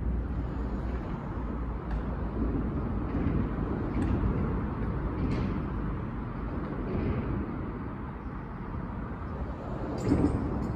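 Steady low outdoor rumble, with a few faint short clicks and a brief louder bump near the end.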